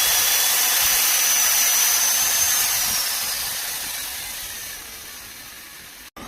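High-speed electric motor whining steadily at full speed with a hiss. About three seconds in, the whine starts to fall in pitch and fade as the motor winds down.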